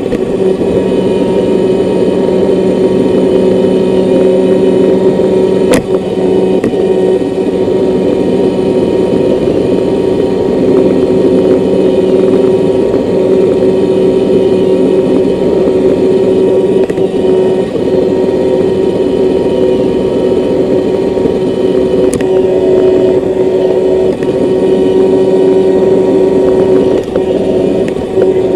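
Roomba robot vacuum running: a steady whirring hum from its motors and brushes, with two brief sharp clicks, about six and twenty-two seconds in.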